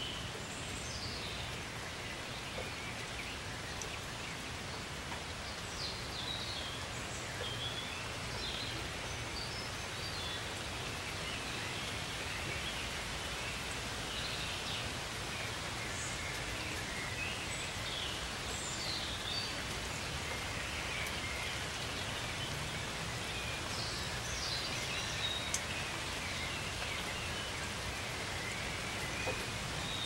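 Outdoor ambience at dusk: a steady hiss of background noise with many short, high bird chirps and calls scattered throughout.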